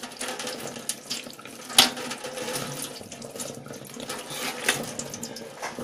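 Water from a tap running and splashing into a metal sink as hair is washed, with irregular small splashes and one sharper sound about two seconds in.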